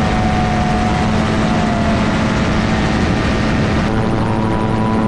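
Gyrocopter's engine and pusher propeller running steadily at high power, heard from the open cockpit with rushing air. The engine note dips slightly about two seconds in.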